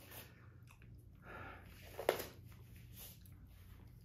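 Close mouth sounds of someone chewing a thick, seedy mouthful of dark chocolate infused with Carolina Reapers and filled with raspberry jam, irregular and moist, with one sharper click about two seconds in.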